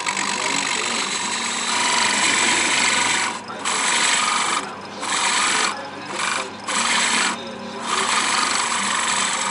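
Lathe running while a gouge cuts a spinning wooden handle blank: a steady hiss of shavings in several passes, broken by about five short pauses as the tool is lifted off, over a faint hum from the lathe.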